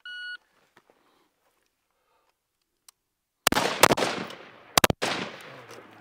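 A shot timer's short electronic beep, then about three seconds later four AR-15 rifle shots in two quick pairs, each ringing out in a decaying echo.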